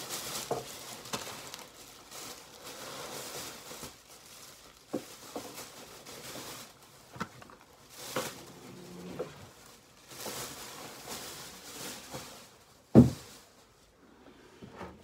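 A shopping bag rustling and crinkling in repeated short bursts as items are handled and put back inside it, with one sharp thump about thirteen seconds in.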